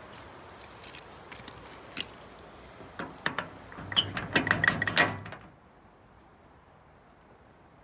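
A padlock rattled by hand against the hasp of a metal cabinet door: a few scattered clicks, then a quick run of sharp metallic clicks and clanks that cuts off suddenly.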